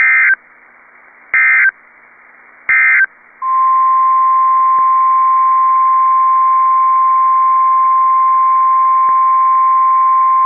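Emergency Alert System header: three short, loud warbling data bursts about a second and a half apart, then the steady single-pitch NOAA Weather Radio warning alarm tone starting about three and a half seconds in. Together they signal the start of a new warning broadcast.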